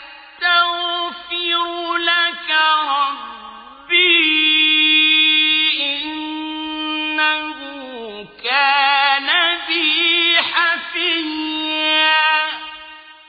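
A male Quran reciter chanting in a slow, melodic style, holding long ornamented notes with a wavering pitch and pausing briefly between phrases. The voice trails off near the end.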